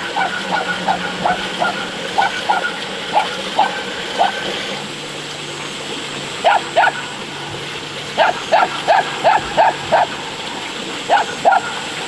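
Dog barking in runs of short, high yaps, with some in quick pairs.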